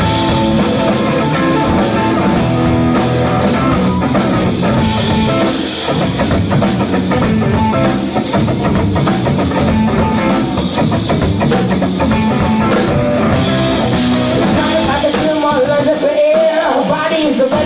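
Live blues-rock band playing an instrumental passage between sung lines, with electric guitar over bass and drum kit. Near the end the low end drops out for about a second while a bending lead line carries on.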